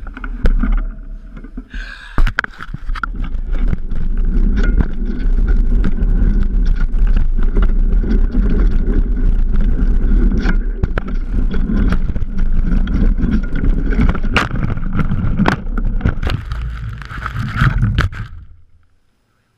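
Mountain bike ridden fast down a rough forest trail, heard from a camera mounted on the bike: steady wind buffeting and rumble with many sharp knocks and rattles as the bike hits roots and rocks. It ends in a crash near the end, and the sound cuts off suddenly.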